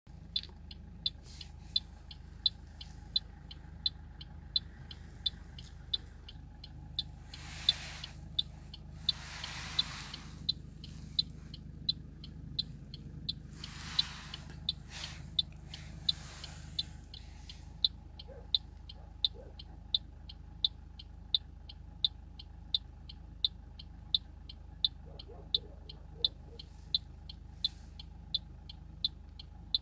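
A car's indicator ticks steadily, about twice a second, inside the cabin. Several longer rushing noise bursts come between about a quarter and halfway through.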